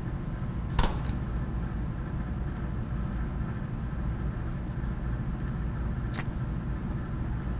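Steady low hum of kitchen room tone, with two short sharp clicks, one about a second in and one near the end.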